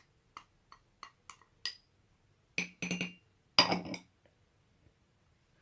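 Light taps and clinks against a glass bottle as ground herbs are added to it: a string of small ticks, then two louder clattering clinks with a brief ring, about two and a half and three and a half seconds in.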